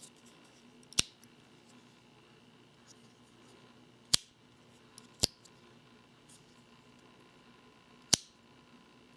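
Buck Paradigm folding knife's pivoting-bolster lock being worked by hand, snapping with four sharp metallic clicks: one about a second in, two close together around the middle, and one near the end.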